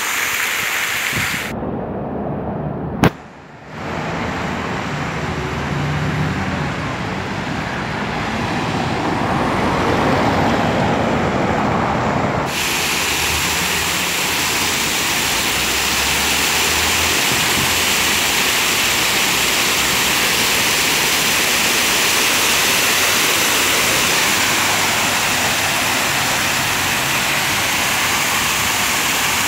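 Fountain water splashing and pouring as a steady rushing noise, which turns brighter and hissier about twelve seconds in. A sharp click about three seconds in, the loudest moment, in a brief dip of the noise.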